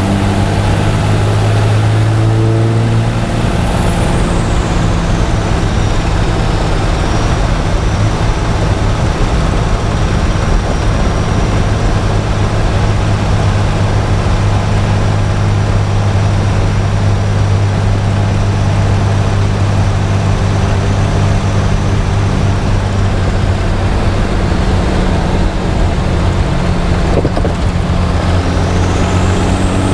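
Cummins diesel engine running with a steady drone and its turbocharger whistling high above it. The whistle falls in pitch about four seconds in, holds steady for a long stretch, then rises again near the end as the turbo spools back up.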